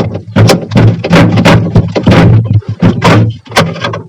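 Repeated knocks and thuds of fridge freezer panels and frame parts being handled and worked loose, over a steady low hum.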